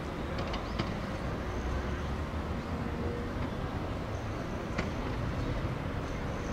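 Steady low rumble of a moving vehicle, with a few light clicks and rattles about half a second in and again near five seconds.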